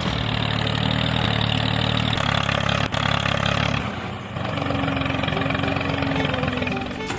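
An engine running steadily, with a brief drop in level about four seconds in.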